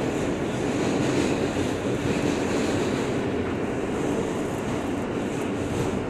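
Interior noise of an R160 subway car: a steady rumble of the train on the track.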